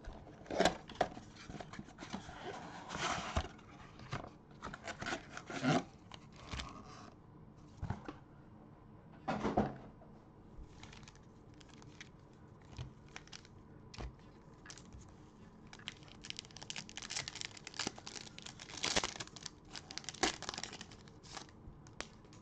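Trading-card pack wrappers from a 2021 Bowman Mega Box being torn open and crinkled by gloved hands, with the box and cards handled in between. The rustling comes in irregular bursts, busiest near the start and again in the last few seconds.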